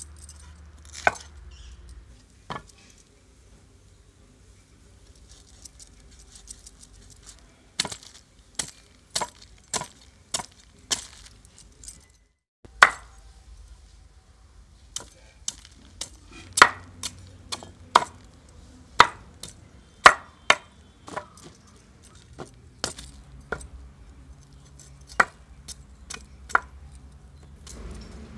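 A broad-bladed chopping knife hacks through raw jackfruit into a wooden board. It makes a series of sharp, irregular chops, up to about two a second, with a short break about halfway through.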